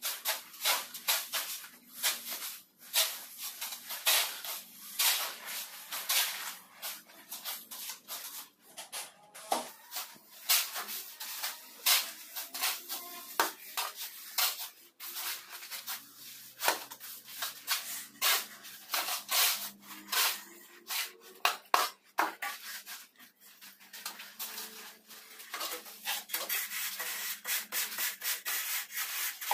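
Repeated gritty scraping in semi-dry sand-cement screed mortar as shovels and a long screed bar are dragged through it, in short irregular strokes that run together more densely near the end.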